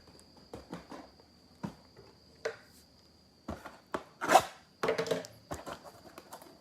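Trading cards and packaging being handled on a table: an irregular run of taps, clicks and short rustles, loudest about four seconds in, over a faint steady high-pitched tone.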